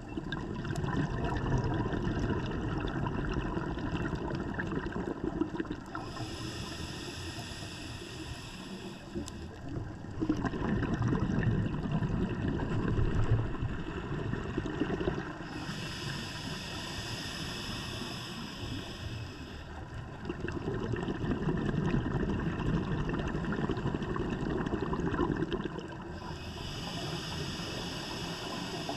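Scuba diver breathing through a regulator underwater: a hiss on each inhale, then a longer, louder rush of exhaled bubbles. About three slow breaths.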